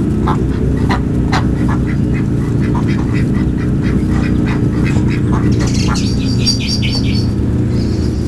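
Domestic ducks quacking in short, scattered calls over a loud, steady low rumble, with a quick run of high chirps about six seconds in.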